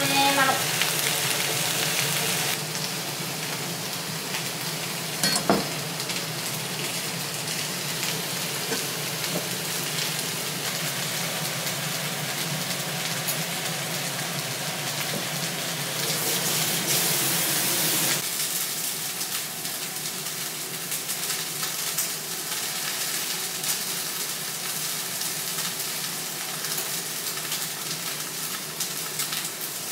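Food sizzling steadily in a frying pan on a gas stove, with one sharp knock about five seconds in and a brighter, louder burst of sizzle past the middle.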